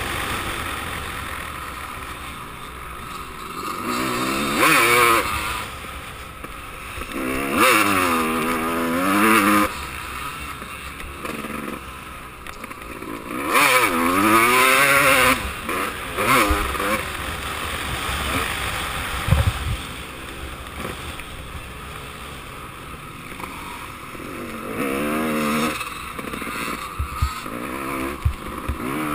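Motocross bike engine at race pace, heard from the rider's helmet, its revs rising and falling in about four strong surges, with wind noise on the microphone.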